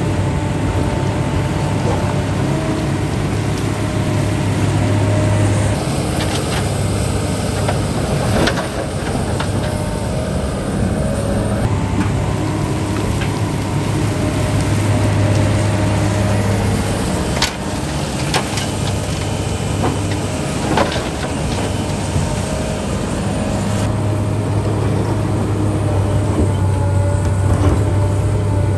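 Diesel engine of heavy construction machinery, such as an excavator or dump truck, running with a steady low drone that swells and eases, and a few sharp knocks along the way.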